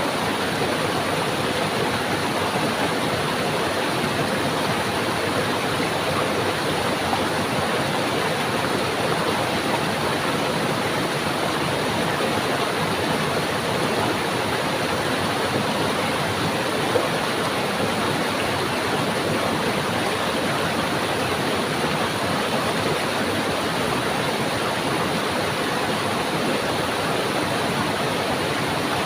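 A stream of water rushing and splashing over rocks in a steady, dense rush.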